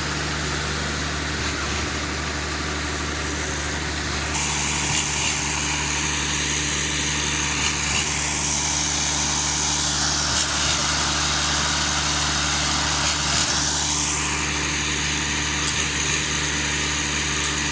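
Engine of a truck-mounted concrete mixer pump running steadily with a low hum, with a high hiss coming in about four seconds in.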